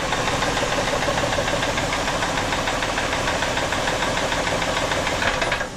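Ford Taurus engine running with a heavy, rapid rod knock that Lucas oil stabilizer has not cured: the bottom end is failing and the engine is shot. The sound cuts off abruptly near the end.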